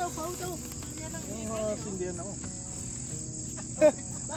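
Crickets trilling steadily at night, with quiet voices of people talking under it and a brief sharp sound a little before the end.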